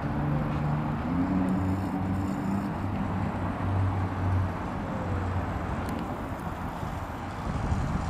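Outdoor city ambience: a steady wash of distant road traffic with a low engine drone that wavers in pitch.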